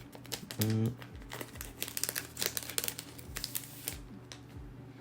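Plastic photo sleeves crinkling as prints are handled and slid out, a run of quick small crackles that thins out near the end.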